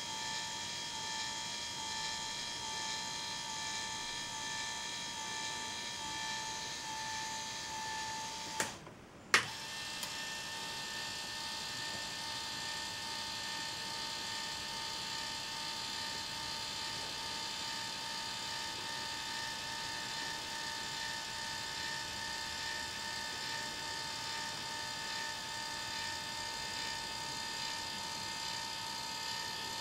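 The electric motor and gearing of a scale RC Scania wrecker running with a steady high whine as the underlift arm lowers. It stops briefly about nine seconds in with two sharp clicks, the second one loud, then runs on steadily.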